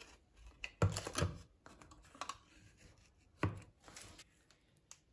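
Foil lid being peeled back from a plastic dessert cup, with a few sharp knocks and light clicks and crinkles as the cup and its plastic packaging are handled on a hard countertop.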